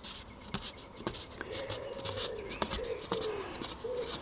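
Hands bending and handling a thin balsa wood sheet, with light rustling, ticks and rubbing. A wavering tone runs in the background from about a second and a half in.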